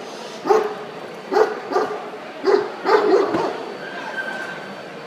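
A dog barking, about seven short barks, several coming in quick pairs, then falling quiet for the last second and a half.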